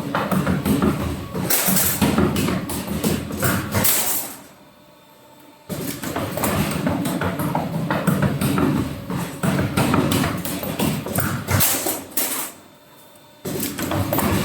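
Machinery clattering, with rapid clicks and knocks over a low rumble. It drops out abruptly twice to near silence, once near the middle and once near the end.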